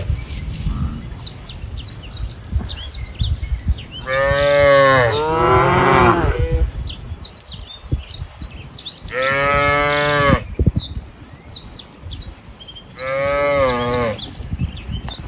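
Cattle mooing: four drawn-out moos, the first two back to back, with small birds chirping throughout.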